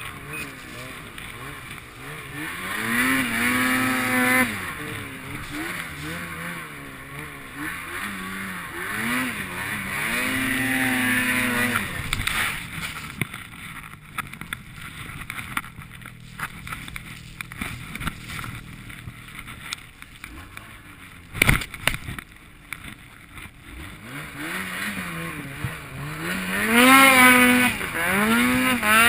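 Snowmobile engine revving up and down through deep powder, its pitch climbing and falling several times, loudest near the end. A single sharp knock about two-thirds of the way through.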